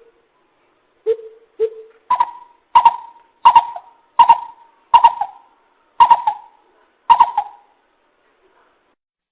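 Coucal (bìm bịp) calling, played as a lure recording: two lower hoots, then a run of about eight louder, higher hoots at a steady pace of a little under two a second.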